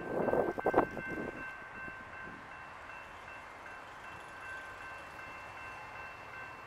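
Railroad grade-crossing warning bells ringing steadily, signalling an approaching train. A short burst of louder rustling noise comes first.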